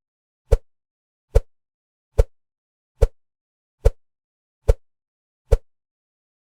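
Seven identical short knock-like hits at an even pace, a little more than one a second, with dead silence between them; they stop about five and a half seconds in.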